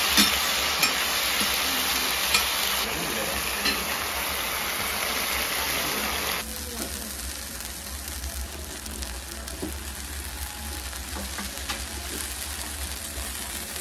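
Pork yakisoba noodles with cabbage sizzling on a hot flat-top griddle, with metal spatulas clicking and scraping as the noodles are turned. The sizzle drops to a quieter level about six seconds in.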